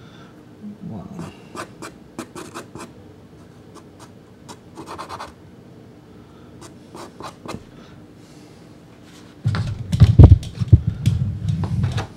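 Soft Sennelier pastel stick scratching in short strokes across Sennelier La Carte pastel card. For the last few seconds there is louder low thumping and rumbling.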